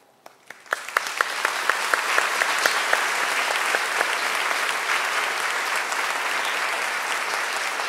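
Audience applause: after a moment's hush it breaks out and carries on steadily, with many individual claps standing out.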